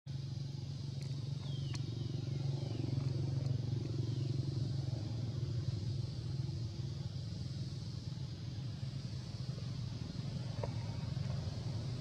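Steady low engine rumble of a motor vehicle running. A few short, high, falling chirps sound over it about two seconds in.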